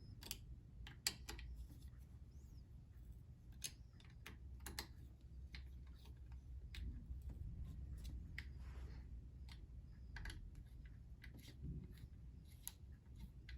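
Faint, irregular clicks and light taps of small parts being handled during e-bike assembly, over a low steady hum.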